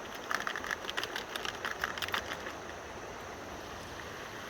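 Small clicks and rattles of fishing tackle being handled and sorted out of a bag for about two seconds, then only the steady rush of flowing river water.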